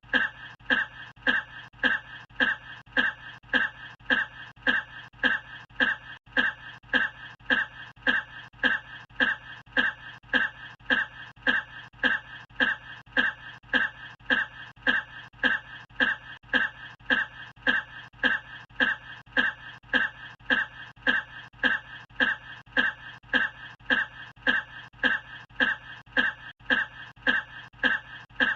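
A man's short cough, one identical clip looped over and over at a machine-even rate of about two coughs a second.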